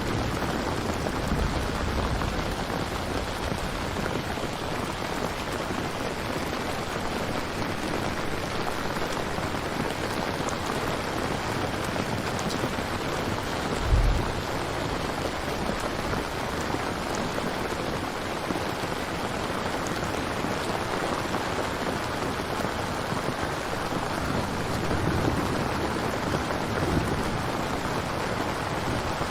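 Steady rain ambience, an even hiss of rainfall, with a few low rumbles of distant thunder: one near the start, a short sharp one about halfway through, and more near the end.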